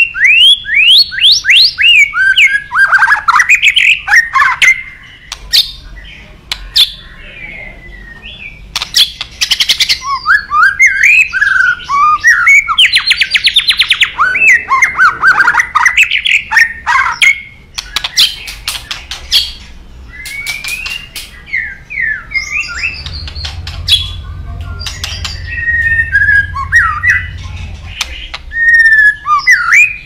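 White-rumped shama in full song: a loud, fast, varied string of whistled phrases sliding up and down, with sharp clicks throughout and a rapid buzzy trill about halfway through.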